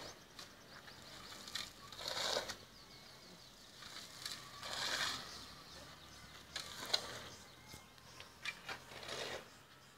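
Shovels scraping and scooping through a heap of gravel and cement as concrete is mixed by hand, a scrape every two seconds or so, with a few sharp clicks.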